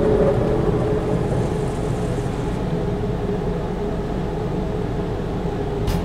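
Automatic tunnel car wash running, heard from inside the car's cabin: a steady drone of machinery and water spray on the body, with a faint steady hum running through it.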